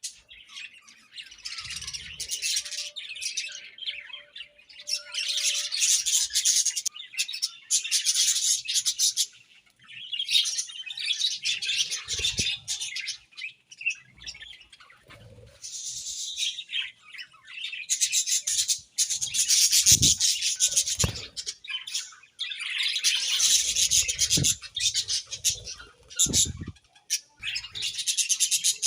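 A group of budgerigars chirping and warbling in busy bursts a few seconds long, with short lulls between them. A few soft low thumps come in the second half.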